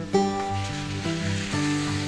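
Background music: a slow song with sustained chords over a steady bass line, no vocal in this moment.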